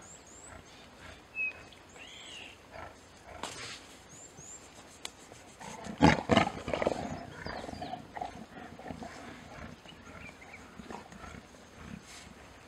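Lions growling in a short, loud outburst about six seconds in, trailing off into quieter growls over the next couple of seconds. Small birds chirp now and then.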